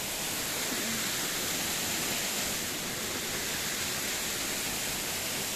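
Steady rushing of water running over a rocky mountain road.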